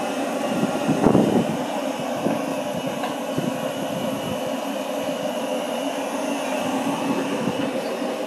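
A steady mechanical drone with a few steady tones in it, and a brief louder noise about a second in.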